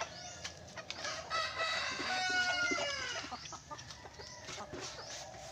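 Free-range chickens clucking as they crowd round to feed, with a rooster crowing once in a long call that falls in pitch at its end, from about a second in to past three seconds.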